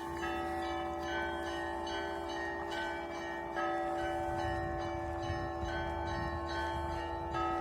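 Church bells ringing: several smaller bells struck in a quick repeating rhythm over the long hum of larger bells, with a heavier strike about halfway through and again near the end.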